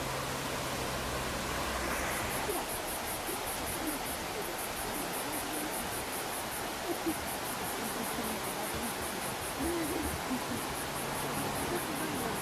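Steady rush of a mountain stream's flowing water. From about two seconds in, an insect joins with a high-pitched chirring in rapid, even pulses.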